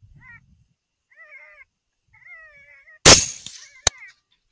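A rifle shot from a 6.5 Grendel AR-15 about three seconds in, the loudest sound, followed just under a second later by a second, shorter sharp crack. Around it come repeated short, high, wavering yelping calls.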